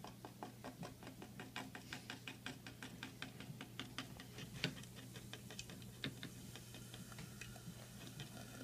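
Baking soda, hydrogen peroxide and vinegar fizzing in a glass jar: a faint, fast, irregular crackle of popping bubbles that thins out after a few seconds.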